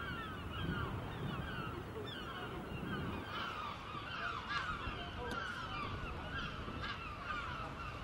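A flock of gulls calling, many short sliding cries overlapping, over a low rumble.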